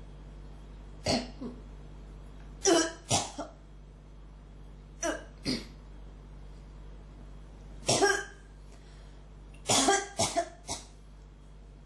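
A person coughing in short bouts of two or three coughs, five bouts a couple of seconds apart: a persistent cough that won't stop.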